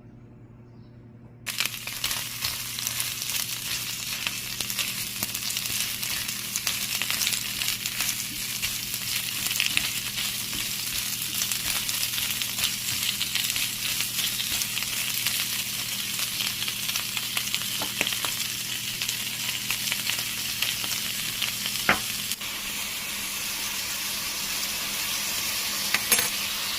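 Pickled radish stir-frying in hot oil in a pan: a loud, continuous sizzle and crackle that starts suddenly about a second and a half in. A few sharp clicks stand out near the end, and a low hum underneath stops a few seconds before the end.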